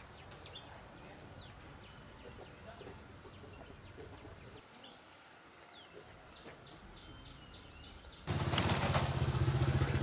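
Quiet rural background with a steady high-pitched insect-like whine and short chirps, then about eight seconds in a small engine suddenly comes in loud and keeps running.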